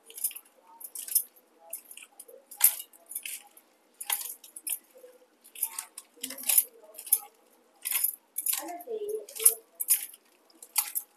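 A hand squishing and kneading chopped banana stem with wet spice paste in a steel bowl, in short irregular squelches a few times a second, with light clinks of bangles and fingers against the steel bowl.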